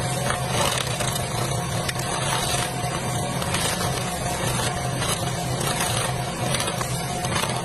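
Skid steer loader's engine running steadily under work, with scattered knocks and cracks over the engine noise.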